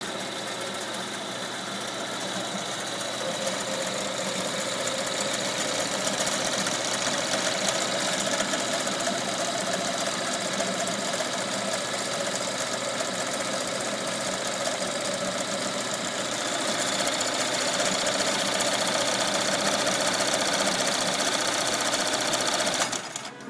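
Commercial embroidery machine stitching at speed: a steady, rapid clatter of needle strokes that drops in level just before the end.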